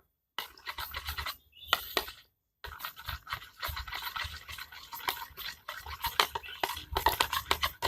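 A utensil stirring a glue-based slime mixture in a container, with quick, irregular scraping and scratching strokes against the sides and bottom, broken by a few short gaps.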